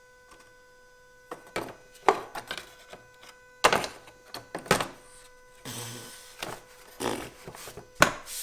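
A string of sharp knocks and clicks at irregular intervals, from parts being handled and set in place in a car's engine bay.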